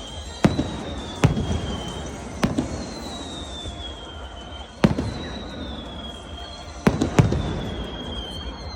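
Aerial firework shells, No. 4 and No. 3 size, bursting singly in quick succession: six sharp bangs, each with a short rumbling echo, the last two coming close together.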